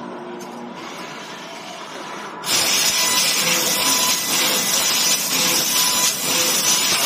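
Laser tube cutting machine at work on a square metal tube. A quiet machine hum, then about two and a half seconds in the cut starts suddenly with a loud, steady hiss from the cutting head as sparks spray.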